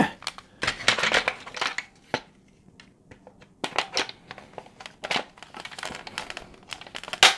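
Hard plastic toy parts being handled and fitted together: irregular clicks and crinkly rustling, with one sharp click near the end.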